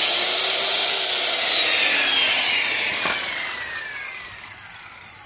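Skil 15-amp circular saw, powered through an inverter from a deep-cycle battery, running at full speed with a high whine, then coasting down after about a second as the whine falls steadily and fades. A single click about three seconds in.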